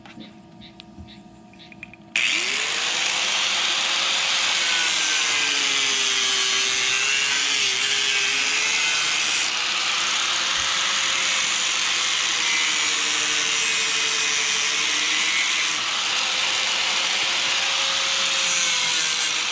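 An angle grinder starts about two seconds in and runs without a break, its disc cutting through PVC well pipe; the motor whine wavers slightly as it loads in the cut.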